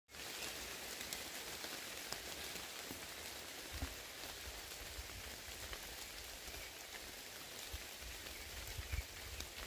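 Steady rain falling on leaves and grass: an even hiss with scattered drop taps, and a few low rumbles about four seconds in and near the end.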